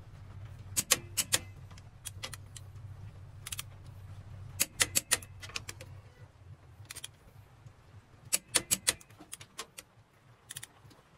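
Ratchet wrench clicking in short runs of a few clicks at a time, as bolts are turned the extra 180 degrees of an angle-torque pass on the 6D16 diesel's cylinder head, over a steady low hum.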